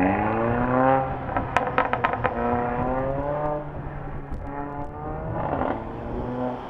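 2017 Mercedes-AMG A45's turbocharged four-cylinder accelerating hard, its pitch rising, dropping back and rising again. Between pulls the exhaust fires a quick string of sharp pops and crackles, with a few more a little later, from the intensified crackle tune and performance downpipe.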